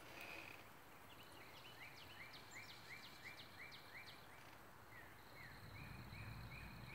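Quiet outdoor background with faint high chirps from a small animal, about three a second, and a thin steady high-pitched tone in the last second or so.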